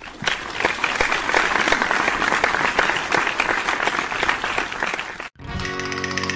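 Applause, a dense, steady clapping for about five seconds that cuts off abruptly. Music with held notes starts near the end.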